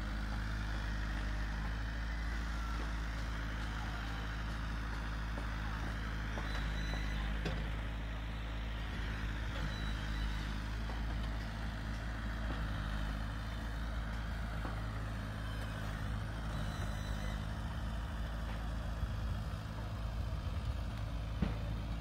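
A steady low engine drone, like a motor idling or running at a constant speed.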